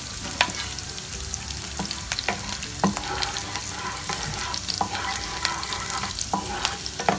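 Cumin seeds, green chillies and curry leaves sizzling in hot ghee on a low flame, with a wooden spatula stirring them around the pan. A steady crackle with frequent small pops.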